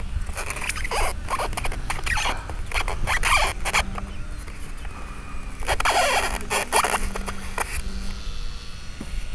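RC model servos whirring in short, irregular bursts, some rising and falling in pitch, as they work the foam A-10 model's wing control surfaces. Low wind rumble on the microphone underneath.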